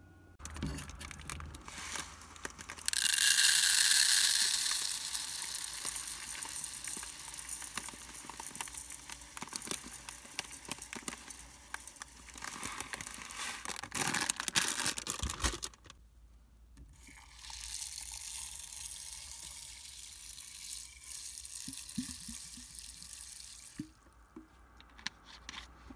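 Dry buckwheat grains poured from a plastic bag into an empty cooking pot: a pattering hiss, loudest at first, with crinkling of the bag. After a short pause, water is poured from a plastic bottle into the pot as a steady splashing hiss.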